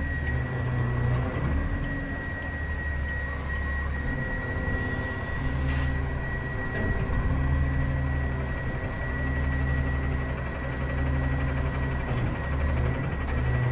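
Autocar Xpeditor roll-off truck's diesel engine running to power its knuckle-boom crane hydraulics, the low engine rumble swelling and easing as the crane works, with a steady high whine over it.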